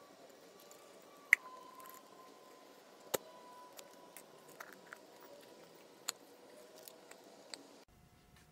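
Quiet handling of a 42RE transmission's overdrive piston being pressed by hand into its bore in the case, its rubber seals worked flat, with a few small sharp clicks, the loudest about a second in.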